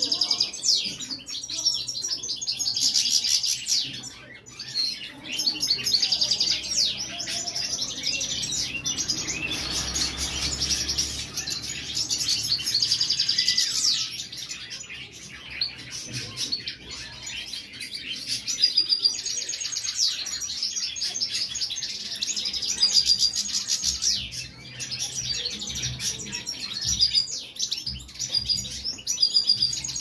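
European goldfinch singing: a long run of fast, high twittering and trills, with a few brief pauses.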